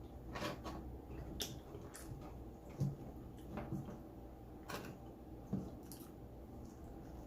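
Close-up eating sounds: chewing with scattered small wet clicks and smacks. There are two louder soft thumps, one about three seconds in and one about five and a half seconds in.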